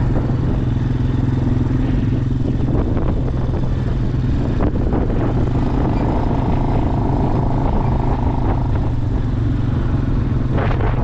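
Tractor engine running steadily at a constant pitch, with a few short clatters.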